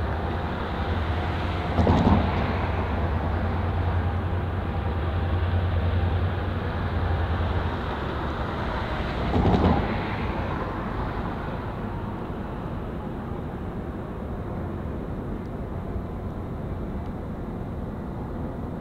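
EMD GP9 diesel-electric locomotive with its 16-cylinder EMD 567 diesel running as it moves slowly, giving a steady low drone that eases off after about eight seconds. Two brief louder noises stand out, about 2 seconds and 9.5 seconds in.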